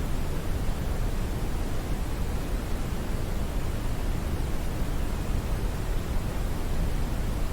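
Smoothed brown noise: a steady, even hiss weighted toward the low end, like a deep rumble, with no changes or events.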